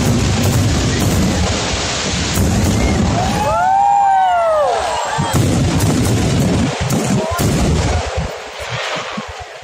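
Aerial fireworks going off in a dense, continuous run of booming bursts and crackle. About four seconds in, a few whistling shells rise and fall in pitch. The bursts thin out near the end.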